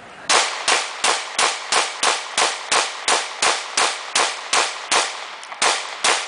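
Caracal F 9mm pistol firing a rapid string of about seventeen shots, roughly three a second, with one slightly longer pause near the end.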